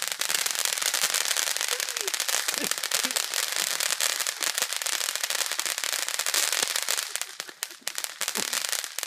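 Ground fountain firework spraying sparks with a dense, steady crackling hiss, which thins out briefly about seven seconds in before picking up again.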